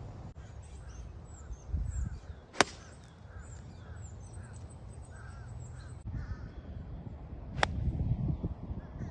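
Two sharp clicks of a golf club striking a ball, about five seconds apart, over a low rumble. Crows caw repeatedly in between, with smaller birds chirping.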